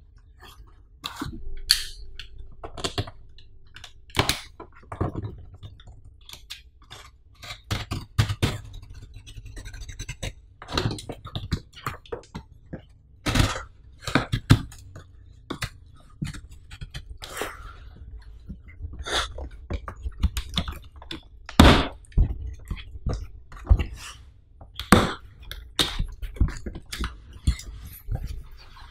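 A utility knife slicing through packing tape on a corrugated cardboard shipping box, with irregular scrapes, taps and knocks as the carton is handled. Near the end the cardboard flaps are pulled open.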